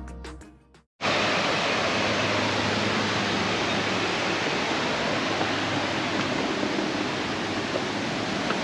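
Background music fades out in the first second, then a steady, even rushing noise with no distinct events.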